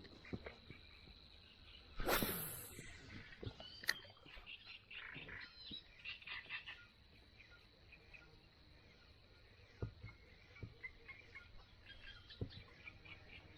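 Quiet waterside ambience with faint, scattered chirping calls and a steady high whine. About two seconds in there is one loud, brief rushing swish, followed by a few soft clicks.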